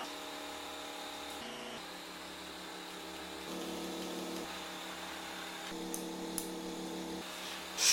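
Slow background music of sustained held chords, the chord changing every second or two, with two faint clicks near the end and a sharp noise right at the close.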